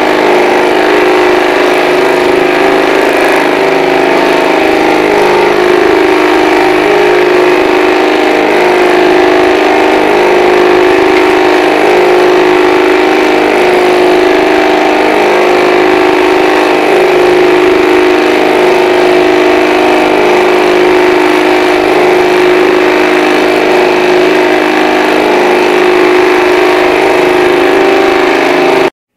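Experimental pulsed-electromagnet motor with a heavy coil-wound rotor, running with a loud, steady hum and a slow regular waver about once a second. It cuts off suddenly near the end.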